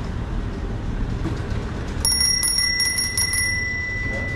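A small bell rings about two seconds in, a clear tone that keeps ringing on while its higher, shimmering overtones pulse and fade, over a steady low background rumble.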